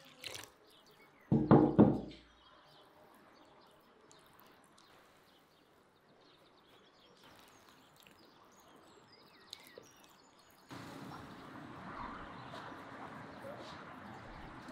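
Three or so loud, dull thumps in quick succession about a second and a half in, as flour and water are worked by hand in a bowl. After a stretch of quiet, a steady outdoor background noise sets in about two-thirds of the way through.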